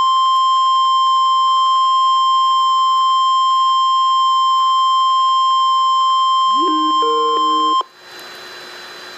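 NOAA Weather Radio warning alarm tone, the steady 1050 Hz alert that announces a warning broadcast, sounding for about eight seconds and then cutting off suddenly. In its last second or so a lower tone rises in and warbles between two pitches. After the cutoff only the radio's static hiss remains.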